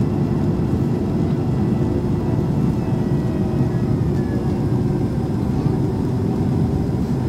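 Steady, low cabin noise of a Boeing 767 airliner on approach to landing, heard from a seat over the wing: engines and airflow.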